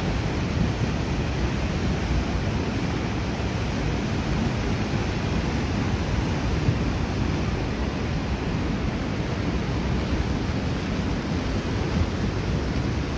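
River in heavy flood, a muddy torrent rushing and churning against a washed-out roadside, making a steady, loud rushing noise with no letup.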